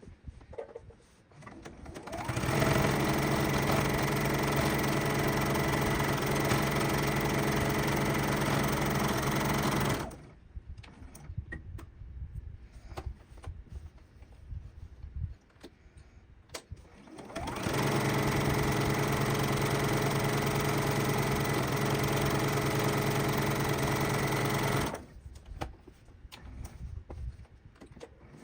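Electric sewing machine stitching at a steady speed in two long runs, a steady hum that stops for several seconds between them, with small clicks and handling of the fabric in the pause.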